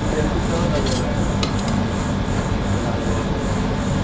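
Metal spatula scraping across a frozen steel ice-cream-roll plate as it rolls up a sheet of ice cream, with a couple of sharp clicks about a second in, over steady background noise.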